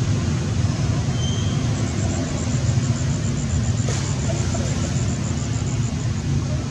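Steady low outdoor rumble, with a faint, fast, high-pitched pulsing trill through the middle and a single sharp click about four seconds in.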